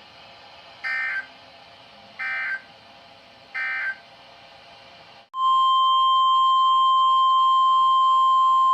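NOAA Weather Radio SAME data bursts: three short screeching bursts about a second apart, the end-of-message code that closes a warning broadcast. After a brief dropout a little past halfway, the steady 1050 Hz weather radio warning alarm tone starts. It is louder than the bursts.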